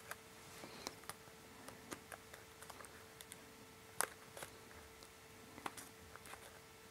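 Faint, scattered crinkles and ticks of folded origami paper being handled and pressed as glued pieces are shifted into position, with one sharper tick about four seconds in.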